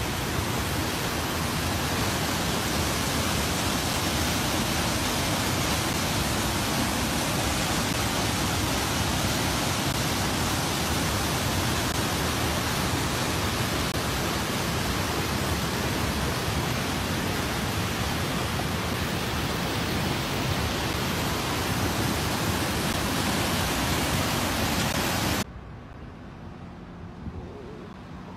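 A fast river rushing through a narrow rock canyon: a loud, steady roar of churning water. About three seconds before the end it cuts off abruptly, leaving a much quieter outdoor background.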